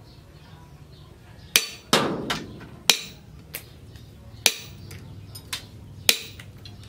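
A handmade machete, forged from a tractor disc-plough blade, chopping through plastic-coated wire laid on a steel post, with a sharp metallic clack at each stroke. Starting about a second and a half in, there are five hard strikes about a second apart, with lighter knocks between them.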